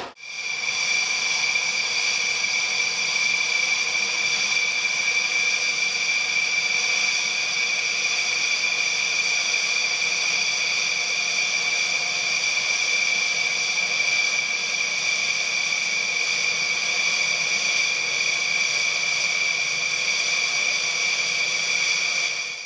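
Aircraft jet turbine running at a constant speed, a steady high whine of several tones that holds without rising or falling.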